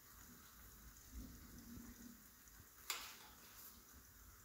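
Faint sizzle of a tomato masala cooking in a frying pan, with a single light tap about three seconds in.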